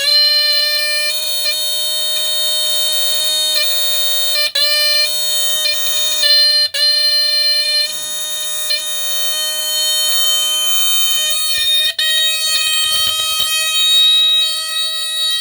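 Westclox 83079 smoke alarm's horn sounding continuously: a loud, buzzy DC-squealer-style tone with a few momentary dropouts. About eleven seconds in, its lower undertone drops away and a thinner, higher tone carries on.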